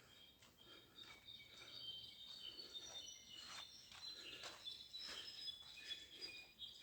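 Birds chirping: many short, high notes overlapping one another, faint, with a few soft taps among them.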